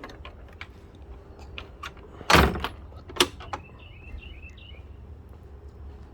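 A door being handled: scattered small clicks, then one loud knock about two seconds in and a lighter one a second later. Short bird chirps follow.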